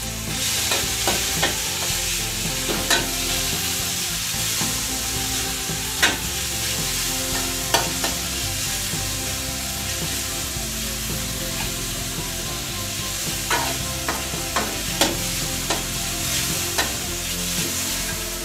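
Sliced pork and garlic sizzling in a metal wok while being stir-fried, with a steady high hiss. A metal spatula scrapes and clicks sharply against the pan at irregular moments, loudest about six and eight seconds in and in a quick run near the end.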